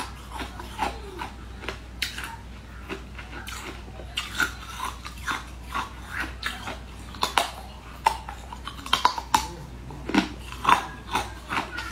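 Biting and crunching into a frozen sweet ice treat, with many sharp, irregular crackles of cracking ice; they are louder and more frequent in the last few seconds.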